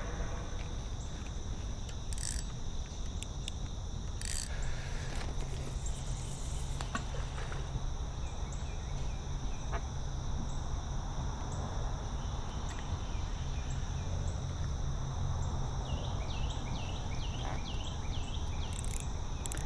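Steady chorus of crickets and other night insects, shrilling in several high, even tones. A few sharp clicks from the spinning reel being handled come in the first few seconds, and a quick run of chirps comes near the end.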